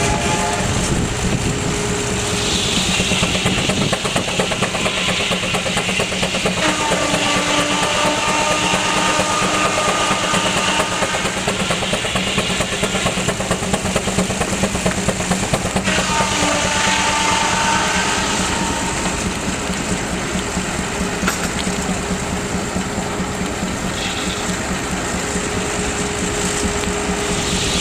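Advance Rumley steam traction engine running under load, belted to a sawmill, with the steady rattle of the mill machinery. A whining tone from the saw comes in twice, for a few seconds each time.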